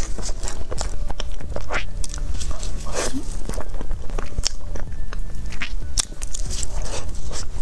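Close-miked chewing and wet mouth clicks and smacks of someone eating a soft, creamy dessert, over a steady low hum.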